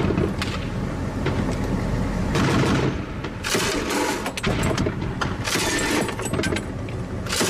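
Turret-mounted machine gun firing several short bursts, about one to two seconds apart, heard from inside the armoured vehicle, over the steady rumble of the vehicle's running engine.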